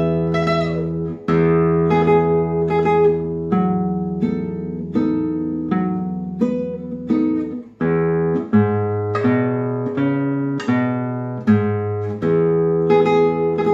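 Solo nylon-string classical guitar played fingerstyle: plucked melody notes that ring and fade over sustained bass notes, in a slow, even tune.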